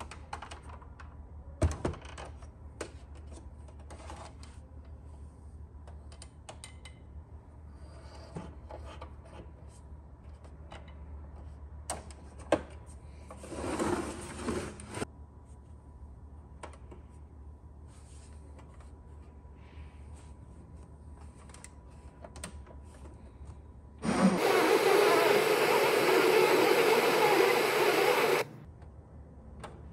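Panasonic RX-D10 boombox being handled, with scattered clicks and knocks and a brief rustle as it is turned and its telescopic antenna pulled out. Near the end its FM radio comes on with a loud, even hiss of between-station static for about four seconds, which then cuts off sharply.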